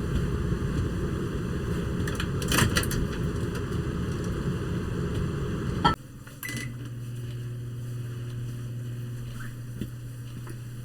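A low rumbling noise with a brief clatter, then a sharp click about six seconds in, after which a microwave oven runs with a steady low hum.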